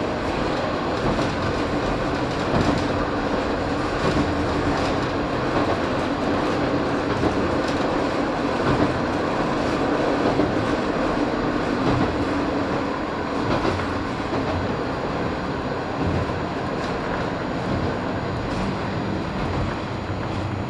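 JR Shikoku KiHa 54 diesel railcar running, heard from inside the car: a steady engine drone under the rolling noise, with wheels clicking over rail joints at a regular beat about every second and a half.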